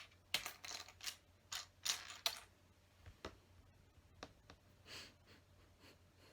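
Small plastic LEGO pieces clicking and rattling as they are picked through by hand, a quick run of clicks over the first couple of seconds, then a few scattered clicks.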